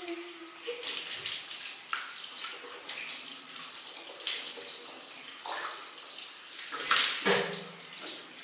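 Water running from a bathroom sink tap while hands splash and rinse in it, with two louder splashes a little before the end.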